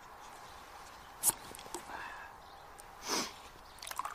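A man sniffs once, a short breathy sniff near the end, after a single sharp click about a second in, over faint steady background hiss.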